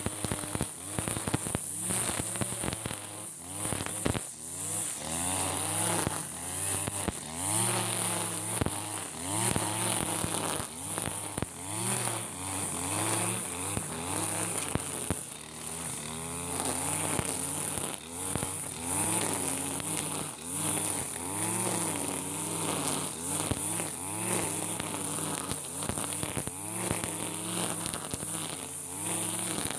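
Backpack brush cutter's small petrol engine running and cutting grass, its pitch rising and falling about every two seconds as the cutter is swung back and forth, with scattered ticks of grass and debris hitting the head.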